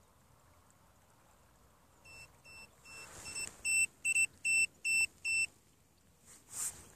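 A run of about nine short, high electronic beeps at an even pace of roughly two and a half a second from a sonar bait boat's electronics, starting faint about two seconds in and turning loud halfway through. A brief rustling noise follows near the end.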